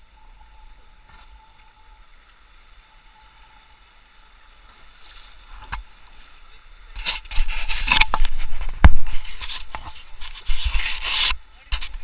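River water rushing and splashing against an inflatable raft in small rapids: fairly quiet at first, then from about seven seconds in, loud irregular splashing and rumbling with sharp knocks, the loudest a thump about nine seconds in.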